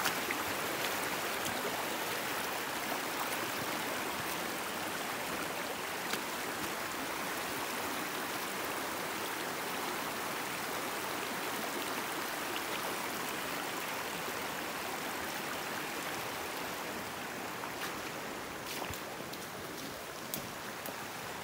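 Rain-swollen creek running: a steady rush of flowing water, easing slightly near the end, where a few faint clicks sound.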